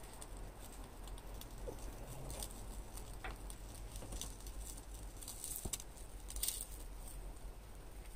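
Thin slices of meat crackling faintly on a small mesh grill over glowing heat, with scattered light clicks of metal tongs on the grill as the slices are turned.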